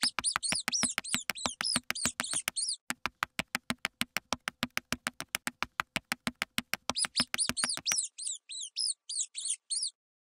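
Mouse squeaking sound effect: quick high chirping squeaks for the first two and a half seconds and again from about seven seconds until near the end. Under them runs an even series of sharp ticks, about six a second, that stops about eight seconds in.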